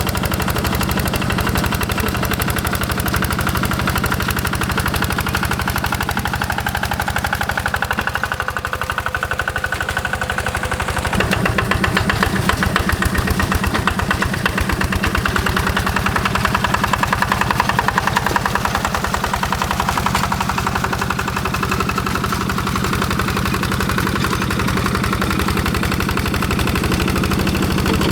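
Quick G1000 hand tractor's single-cylinder Yanmar diesel engine running with a rapid, even knock of its firing strokes. It gets louder and harder for a stretch from about eleven seconds in until about twenty seconds in.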